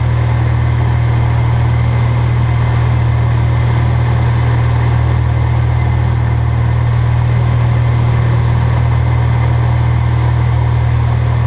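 Single-engine light aircraft's piston engine and propeller running steadily, a constant low hum heard from inside the cockpit.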